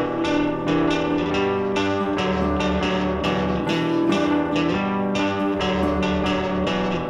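Instrumental background music led by plucked strings, with notes struck in a steady rhythm.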